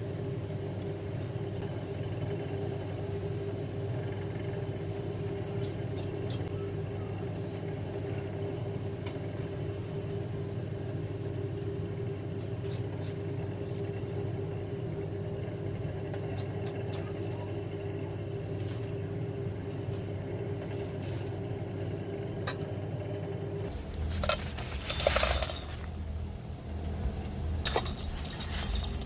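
Steady hum of a kitchen appliance with faint scattered clicks. About 24 seconds in the hum changes, and dishes and cutlery clink and clatter for a few seconds.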